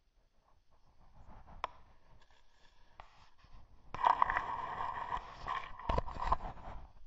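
Scraping and crunching from the rubber track and wheels of a homemade motorized snow tow rolling over snow and slush. The sound is faint at first and gets louder about four seconds in, with a few sharp knocks around six seconds.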